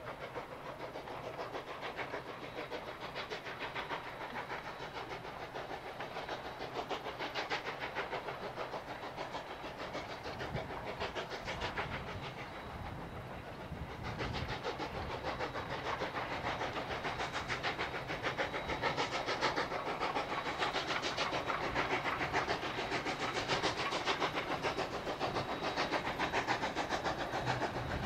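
K-36 2-8-2 narrow-gauge steam locomotive working a train, its exhaust beating in a quick, steady rhythm. It grows louder in the second half.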